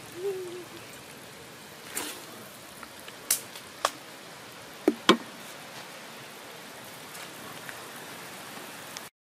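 A few sharp clicks and light knocks of a dish and a wooden spatula against a metal pan as sauce is scooped out, over a steady low hiss.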